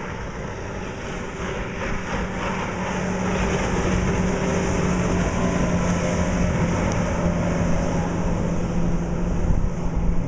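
Outboard motor on a small race boat running at speed, a steady engine drone that grows louder over the first few seconds as the boat comes closer.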